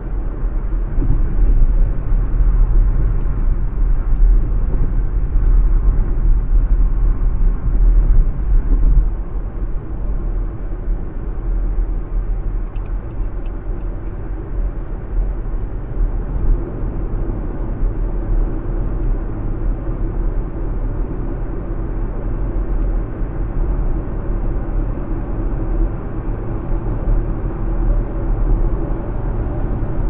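Steady cabin noise of a car driving at expressway speed: a deep, even rumble of tyres and engine, a little louder for the first nine seconds or so.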